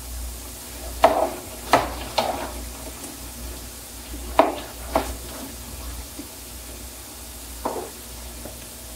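Cubed potatoes sizzling as they fry in a skillet, while a spatula scrapes and knocks against the pan about six times as they are turned.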